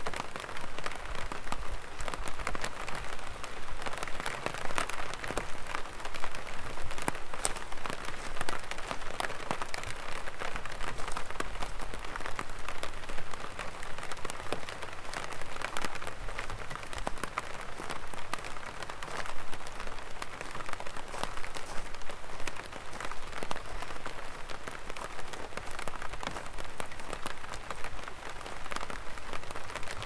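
Light rain pattering steadily on an umbrella: a dense, even patter of many small drops.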